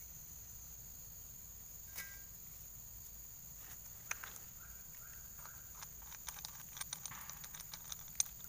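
Scattered light clicks and ticks of small metal parts being handled at a brush cutter's blade hub, starting about halfway through, over a steady high drone of crickets.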